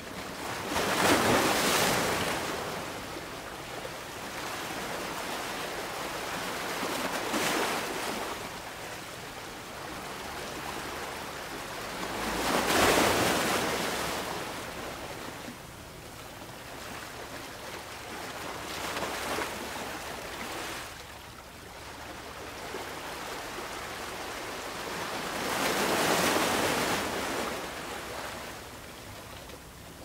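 Sea waves breaking and washing up on a shore, swelling to a loud rush about every six seconds with a steady hiss of surf in between. The loudest surges come near the start and about halfway.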